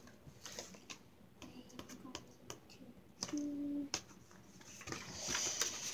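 Scattered small clicks and taps of craft supplies being handled, with paper rustling from about five seconds in.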